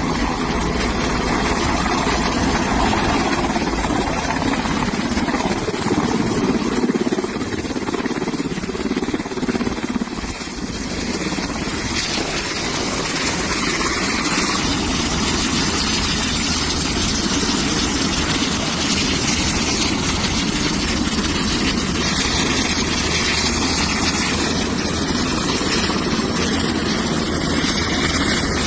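Loud, steady engine noise with a low hum underneath.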